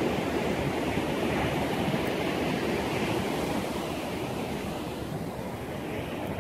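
Sea surf washing on a beach, a steady rushing noise, with wind buffeting the microphone.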